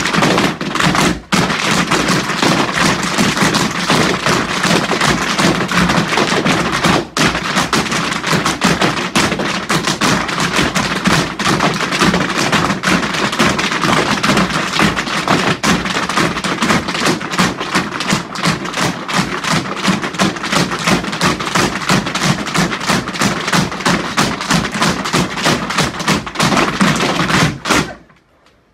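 A group of tap dancers' tap shoes striking a wooden floor in a fast, dense rhythm, a cappella with no music, stopping abruptly near the end.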